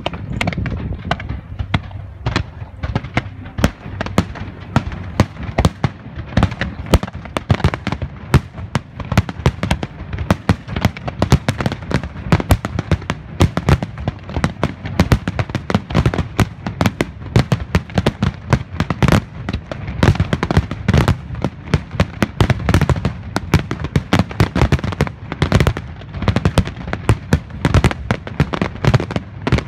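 Fireworks display: a dense, unbroken barrage of bangs from aerial shells bursting and rising comets, several reports a second.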